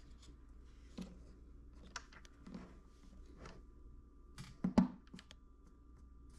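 Scattered light clicks and knocks of hands pressing a flexible 3D-printed back cap into the rear of a carbon-fibre telescope tube, the loudest knocks a little before five seconds in, over a faint steady hum.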